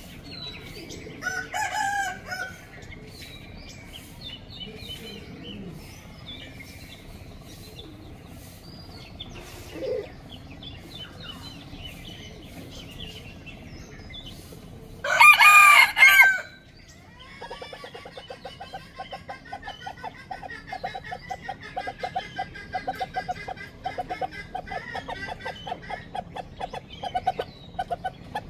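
Chickens calling: scattered calls, then a loud drawn-out crow about halfway through, followed by a long run of fast, rapid clucking.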